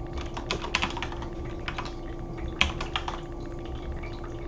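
Typing on a computer keyboard: key clicks in short, uneven runs, the loudest about halfway through, thinning out near the end, over a faint steady hum.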